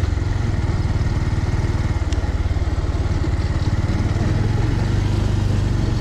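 Bajaj Pulsar's single-cylinder engine running steadily at low speed while the bike is ridden along a dirt track, with an even, fast pulsing note.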